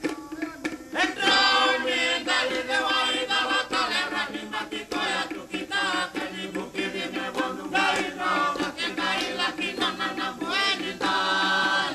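A choir singing, several voices together, over a steady low held note.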